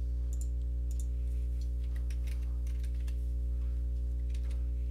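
Faint, scattered clicks of a computer mouse and keyboard over a steady low electrical hum.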